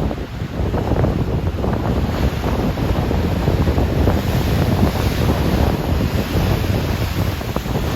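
Rough Atlantic Ocean waves churning and breaking, with a steady wash of surf and wind rumbling on the microphone.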